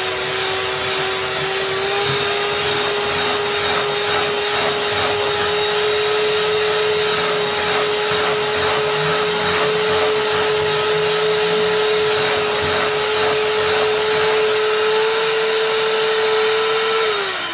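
Electric hand mixer running steadily, its beaters whipping a thick peanut-butter frosting in a glass bowl, with a steady motor whine. Near the end the motor is switched off and winds down, the whine falling in pitch.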